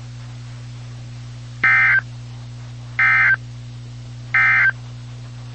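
Emergency Alert System SAME end-of-message data: three short, identical buzzing bursts about a second and a third apart, the digital code that closes an EAS broadcast, over a steady low hum.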